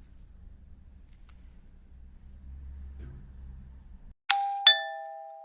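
A two-note descending chime, a high ding then a lower dong, each struck sharply and left ringing as it fades. Before it there is a faint low hum that cuts off abruptly.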